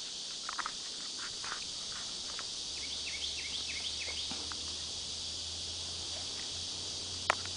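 Steady high-pitched droning of insects, with short chirps repeating over it. A low steady hum comes in about three seconds in, and there is a single sharp click near the end.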